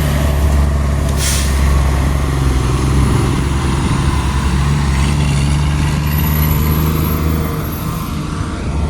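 Heavy road vehicle engine running nearby in a steady low drone, with a short hiss of air brakes about a second in.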